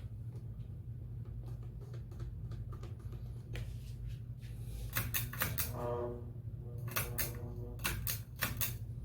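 Scattered light clicks and taps of plastic and metal as cable connectors inside a flat-screen TV are handled and pressed into their sockets, with a steady low hum underneath.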